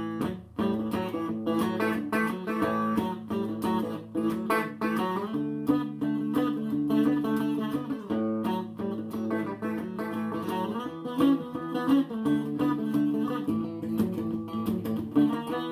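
A Tokai ST50 Stratocaster-copy electric guitar, the 1956-style model with U pickups, played clean straight through a Tokai TA-35 transistor amplifier. Picked chords and single notes ring on, with the chord changing every second or two.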